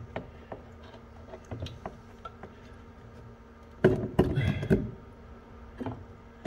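Brass ballcock valve knocking and scraping against the plastic tank wall as its threaded tail is pushed through the inlet hole. There are a few light clicks, then a short loud clatter about four seconds in, over a faint steady hum.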